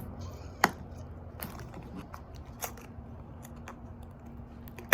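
Toy blind-pack packaging being handled and opened: scattered sharp clicks and crackles, with a louder snap about half a second in and another near the end.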